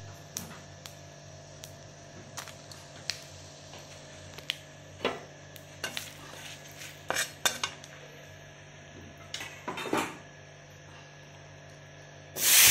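A spatula clicks and knocks irregularly against a kadai as spices and bay leaves are stirred in a little hot oil. Near the end a loud, steady sizzle starts as cubed potatoes go into the hot oil.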